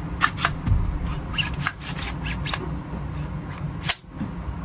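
An AR-15 rifle being handled and fitted together by hand: a quick run of small clicks and rattles from its parts, ending in a sharper click about four seconds in.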